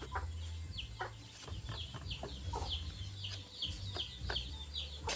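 Chickens peeping: short, high, falling notes, two or three a second, over a steady low hum, with scattered light knocks from a wooden handle being worked into an aluminium pole.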